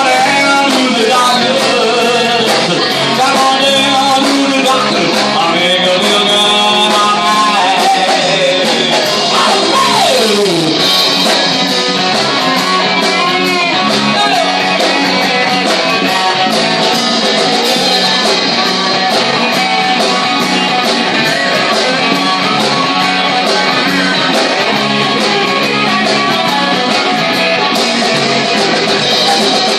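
Live rock band playing loud and steady, with electric guitar to the fore.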